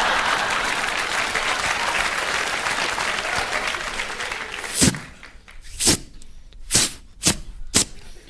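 Studio audience applauding and laughing. About five seconds in, the applause dies down and a series of short, sharp knocks follows, roughly one a second.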